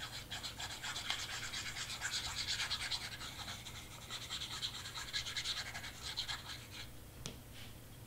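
Glue bottle's nozzle scraping rapidly back and forth across cardstock, spreading a thin layer of glue: a brisk, scratchy rubbing that stops about seven seconds in, followed by a single light tap.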